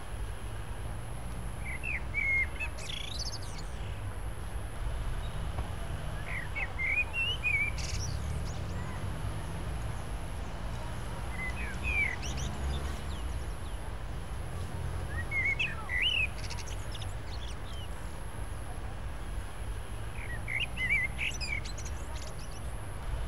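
A bird singing short chirping phrases that recur about every four to five seconds, over a steady low rumble.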